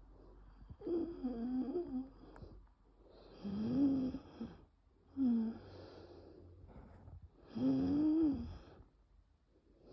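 Severe asthmatic wheezing: four laboured breaths about two seconds apart, each carrying a musical, wavering wheeze tone over the breath noise, the sign of bronchial spasm narrowing the airways. The breaths about a third of the way in and near the end are the loudest.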